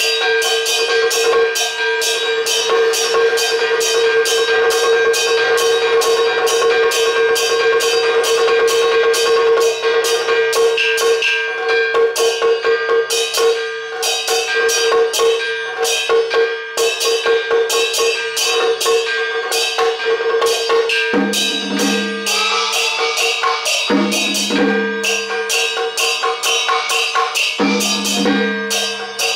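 Traditional Chinese ritual music: fast, even percussion strokes over a long held note. The held note breaks off a few times near the end while a lower note sounds in its place.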